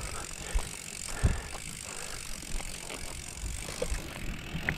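Mountain bike rolling over a concrete road: steady tyre and frame noise with rattles and a few sharp knocks from the bike, the loudest about a second in.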